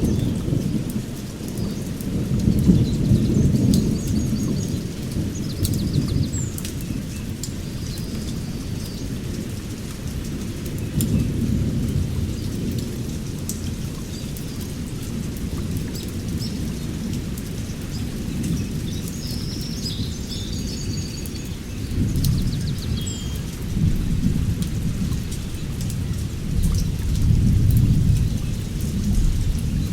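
Heavy rain pouring on a forest canopy, under a low rumble that swells and fades several times. A few bird chirps sound over it, near the start and again about two-thirds of the way through.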